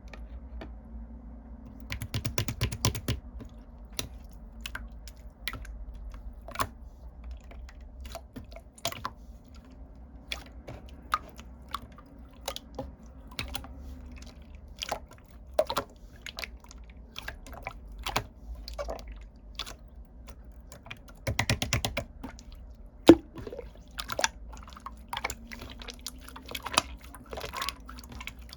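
Scattered sharp, close-up clicks and crunches, irregular throughout, with two dense crackling runs about two seconds in and about twenty-two seconds in, over a low steady hum.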